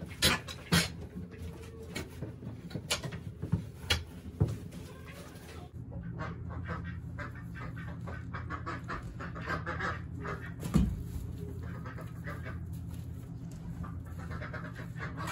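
Chickens clucking in a coop while a pitchfork scrapes and knocks as soiled straw bedding is forked into a wheelbarrow. A steady low hum comes in about six seconds in, and one loud knock stands out about two-thirds through.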